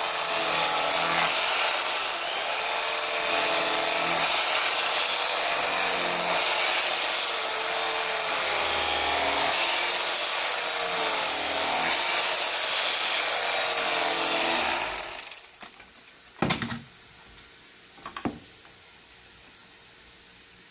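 Cuisinart electric carving knife running, its motor buzzing as the blades saw through tender braised chuck roast. It switches off about fifteen seconds in, followed by two short knocks.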